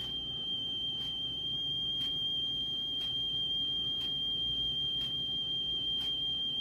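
Cassette tape playing on a portable cassette player before its recording begins: steady tape hiss and low hum under a constant high-pitched tone, with faint ticks about once a second.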